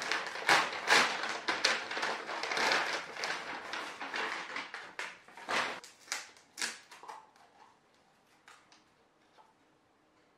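Brown paper fast-food bag rustling and crinkling as it is opened and food is taken out, a rapid run of crackles that dies down to a few faint taps about seven seconds in.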